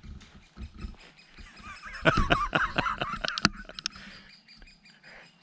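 Bird chirping: a burst of quick, wavering chirps about two seconds in, with a few sharp clicks among them.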